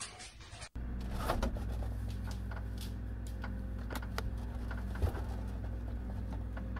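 Steady low refrigerator hum that starts suddenly under a second in, with scattered light clicks and taps as plastic ketchup bottles on the shelf are handled.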